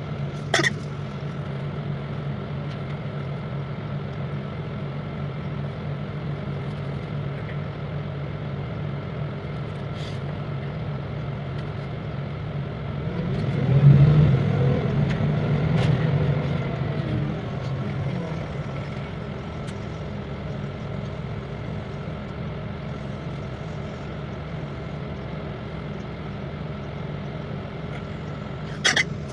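City bus running, heard from inside the passenger cabin: a steady engine and road hum that swells louder for a few seconds about halfway through. A sharp click comes just after the start and another near the end.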